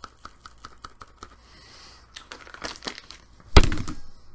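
Handling noise: a run of light clicks, then rustling, and a loud thump about three and a half seconds in.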